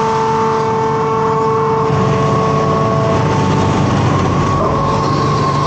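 Hitachi Zaxis 210F amphibious excavator's diesel engine running steadily under load, with a steady whine from the hydraulics over a low rumble.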